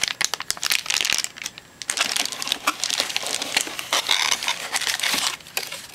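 Plastic packaging crinkling and rustling in bursts, with many sharp crackles, as camcorder accessories are handled and unwrapped, easing off briefly about a second and a half in.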